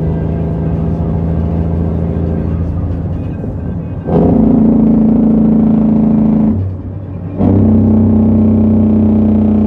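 Heavy truck's diesel engine heard from inside the cab while driving, a steady drone that gets suddenly louder and higher about four seconds in. Near seven seconds it drops away for under a second and then comes back, as when the throttle is lifted for a gear change.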